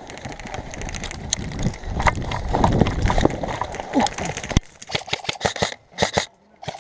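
Footsteps and rustling of an airsoft player moving over rough ground, with a low rumble of movement and scuffs, then a quick run of sharp clicks or taps in the last couple of seconds.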